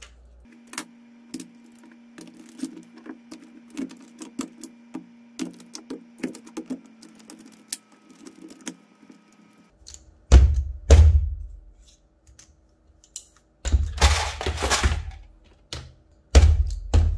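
Cylindrical 46160 LiFePO4 cells being set into plastic cell-holder brackets: a run of small plastic clicks and taps, then, from about ten seconds in, several heavy thunks and rattling knocks as the holder is pressed down onto the cells and the block is handled.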